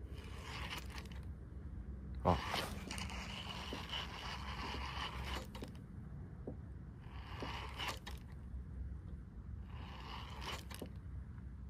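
Water swishing and splashing around a moving kayak in repeated surges every couple of seconds, with a sharp knock about two seconds in.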